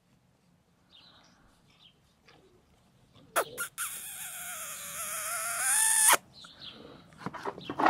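A dog whining: one high, wavering whine of about three seconds that cuts off suddenly, just after a couple of sharp clicks.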